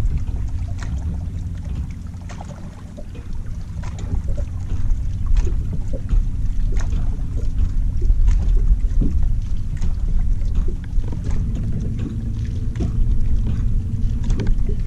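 A bass boat sitting on the water: a steady low rumble, with water lapping against the hull and scattered small knocks and splashes.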